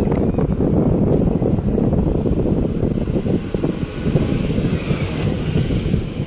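Low, choppy rumble of wind buffeting the microphone together with a vehicle's road noise.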